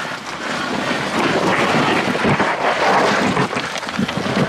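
A 4x4 off-road vehicle working its way over a rocky trail obstacle, its engine and tyres heard through wind buffeting the microphone. The sound is a rough, uneven rushing that swells and fades.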